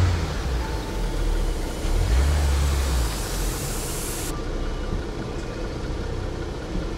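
Off-road truck engine running, with its low rumble surging twice, once at the start and again around two to three seconds in.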